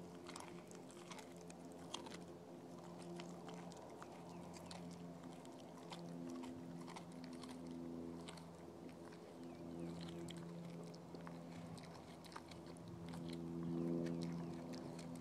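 A dog gnawing and chewing a chunk of raw green tripe: irregular wet clicks and smacks of its teeth working the meat. A steady low hum comes and goes in the background.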